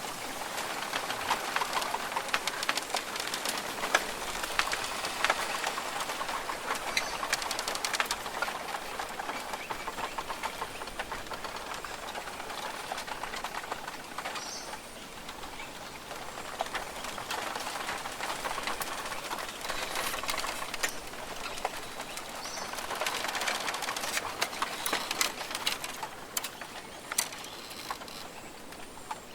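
Rainforest ambience: a steady rushing hiss full of small pattering clicks, swelling and easing, with short bird calls now and then.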